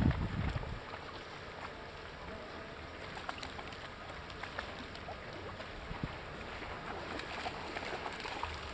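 Small waves lapping and trickling at the water's edge, with faint wind on the microphone. A brief low thump on the microphone comes right at the start.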